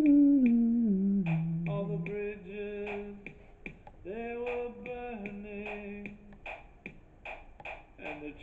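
Recorded rock song playing from a CD: an instrumental passage between vocal lines, with a steady beat of sharp hits about twice a second under held notes, one sliding down in pitch in the first second and a half.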